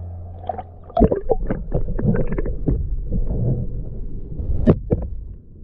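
Sea water sloshing and gurgling around a kayak-mounted action camera as it dips from the surface to just under the water, with a run of splashes and sharp knocks, the loudest about a second in and near the end.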